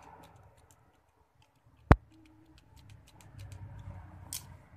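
Pens and a mechanical pencil handled on a hard tabletop: one sharp, loud plastic click about two seconds in, then light ticking and rustling of handling, with a smaller click near the end.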